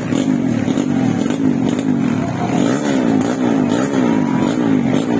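Several motocross dirt bikes racing, their engines revving up and dropping back in pitch over and over as the riders work the throttle.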